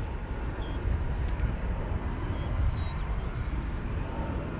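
Steady low rumble of distant jet aircraft engines, with a faint thin whine and a few faint short high chirps.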